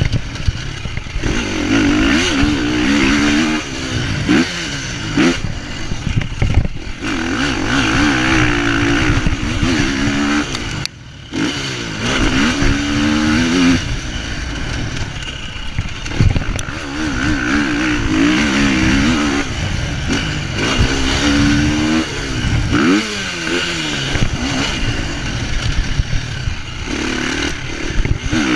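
Motocross dirt bike engine revving hard, its pitch climbing and dropping over and over as the throttle is opened and closed around the track. There is a short break about eleven seconds in.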